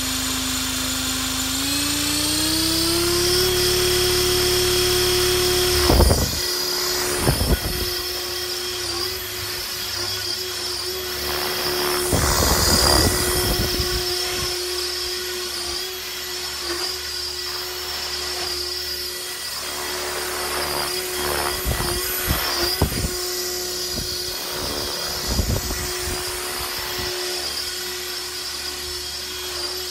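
Blade 330S electric RC helicopter spooling up, its whine rising in pitch over the first few seconds, then hovering and flying at about 1700 rpm head speed with a steady high whine. Several brief, louder rushes of noise break in along the way.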